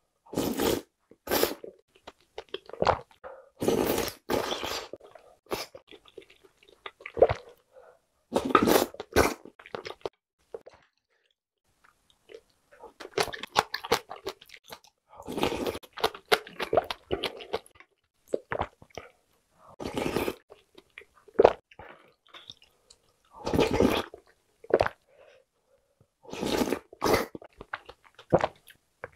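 A person eating spicy noodle and sujebi (hand-torn dough) soup from a spoon: slurping noodles and broth and chewing, in irregular bursts with short pauses.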